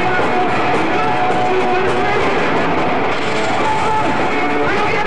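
Live rock band playing steadily and loudly: electric guitar over a drum kit.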